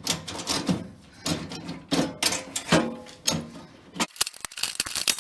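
Metal machine parts being handled: a quick series of clicks, clinks and knocks, over a low steady hum that stops about four seconds in.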